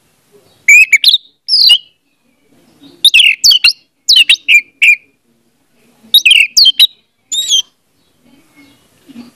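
Orange-headed thrush singing: several short, loud phrases of quick, swooping whistled notes, with brief pauses between them.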